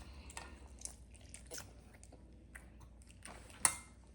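Mouth sounds of eating close to the microphone: soft chewing with small scattered clicks, and one sharper click or tap a little over three and a half seconds in.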